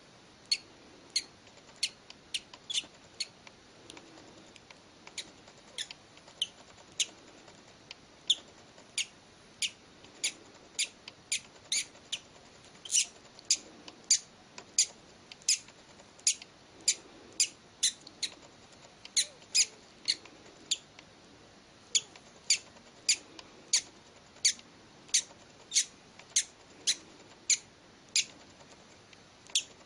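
Newly hatched bird chick cheeping: short, high peeps repeated steadily, about one to two a second.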